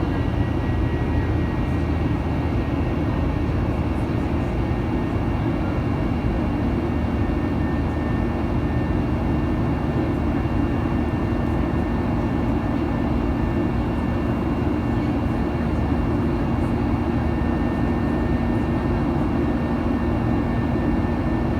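Steady cabin noise of a Boeing 737-800 in flight after take-off: the CFM56 jet engines and airflow make a constant, even roar with a low hum and faint high whining tones.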